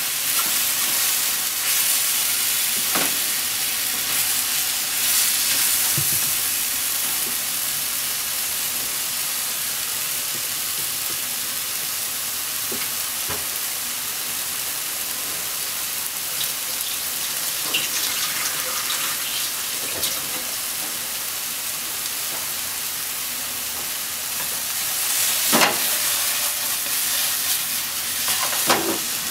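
Shiitake, enoki and Japanese leek sizzling as they are stir-fried in a non-stick pan, a steady hiss, with now and then the scrape and knock of a wooden spatula against the pan, loudest near the end.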